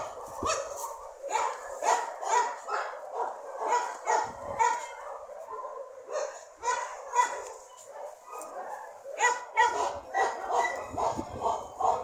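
Dog barking and yipping in quick, irregular bursts.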